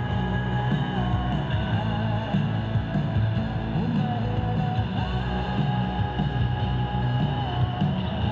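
Music with a rock feel played over a public address system, with long held notes that bend in pitch.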